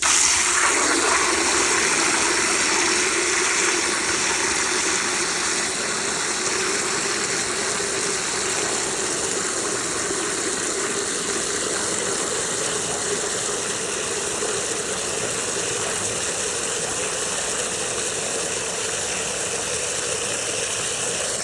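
Water running steadily into a plastic bucket, a continuous rushing splash. Its pitch rises slightly in the first second as the bucket begins to fill.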